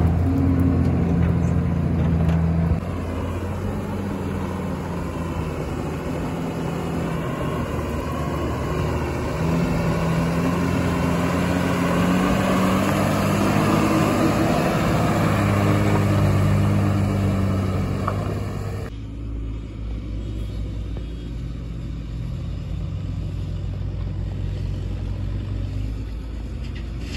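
Heavy diesel machinery engine working under changing load, its note rising and falling. It eases off sharply a few seconds in and drops again about two-thirds of the way through.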